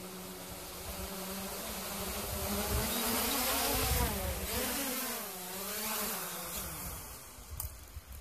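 Hubsan H501S brushless quadcopter's four propellers buzzing as it comes down under return-to-home on low battery. The buzz grows louder as it comes near, wavers in pitch as the motors adjust during the descent, then dies away about seven seconds in as it touches down on grass.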